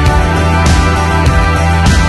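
Background music with a steady beat, a drum hit about every 0.6 seconds under sustained notes.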